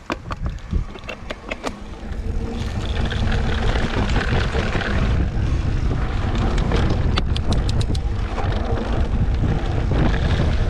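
Mountain bike descending a dirt singletrack: wind buffeting the camera microphone and the tyres running over dirt, with frequent clicks and rattles from the bike over bumps. The noise swells about two seconds in as the bike picks up speed, then stays loud.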